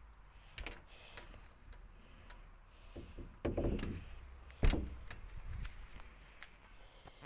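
A door being opened by its knob and stepped through: a few light clicks of the knob and latch, a rustle as a sheer curtain is brushed aside about three and a half seconds in, then a sharp knock of the door about a second later, the loudest sound.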